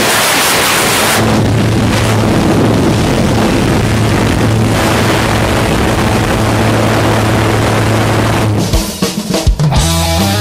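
Jump plane's engine and propeller droning steadily inside the cabin, with wind rushing, briefly louder in the first second. About eight and a half seconds in it gives way to rock music with drums.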